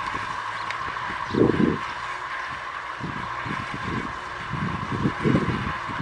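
Kubota M6040SU tractor's diesel engine running steadily under load as it pulls a disc plough through the soil, with irregular low rumbling surges.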